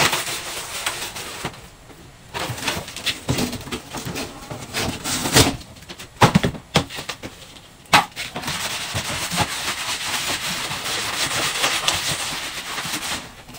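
A flattened cardboard box being handled: flapped, unfolded and laid down on the concrete floor, giving a series of sharp slaps and knocks with stretches of rustling and scraping.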